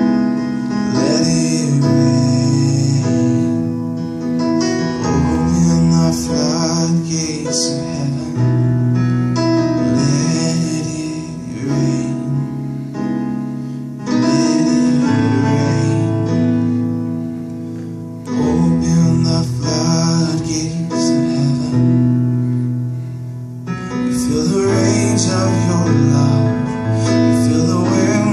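A man singing while playing held chords on an electronic keyboard.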